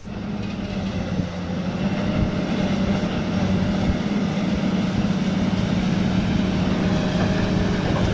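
A steady engine drone with a low hum. It starts suddenly and grows a little louder over the first two seconds.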